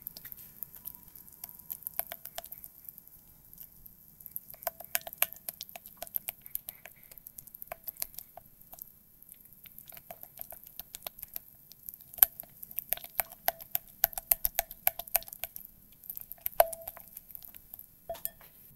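Silicone spatula stirring thick soy-milk cream cheese in a glass bowl: sticky, wet clicks and squelches with light knocks against the glass, in irregular bursts with short pauses.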